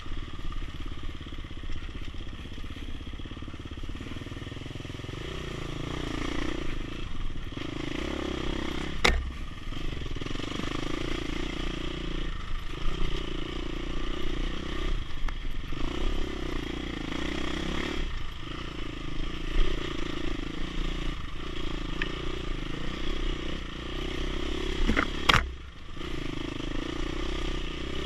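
Dirt bike engine under way, its note coming and going every few seconds as the throttle is opened and shut along the trail. There are two sharp knocks, about nine seconds in and near the end.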